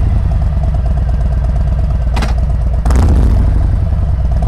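Harley-Davidson Road Glide Special's Milwaukee-Eight 114 V-twin running with a steady low rumble. It gets louder about three seconds in, and there is a sharp click a little after two seconds.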